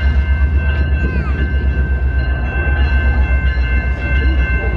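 Canadian Pacific diesel train locomotive running close by: a loud, steady low throb that pulses several times a second, with several constant high whining tones above it.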